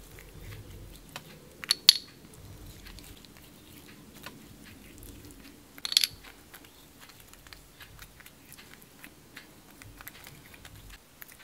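Pastry brush dabbing and stroking melted butter onto raw hen skin: soft wet ticks and patting. Twice, about 2 s and 6 s in, a sharp ringing clink as the brush taps the small ceramic butter bowl.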